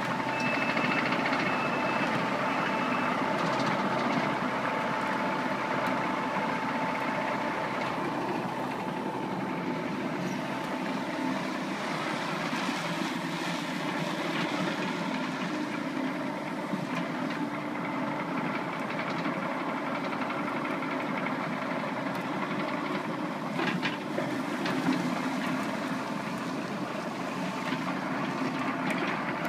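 Sumitomo SH75U compact excavator's diesel engine running steadily, with its travel alarm beeping for the first few seconds.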